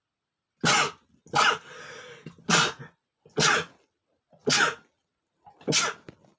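A man sneezing six times in quick succession, about one a second: a sneezing fit.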